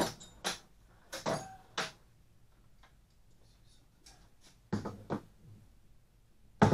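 Sharp clicks and metallic clinks of hand tools and small hardware being handled: first rummaging in a metal tool chest drawer, then working at the kayak handle, with a quiet gap between and the loudest clack near the end.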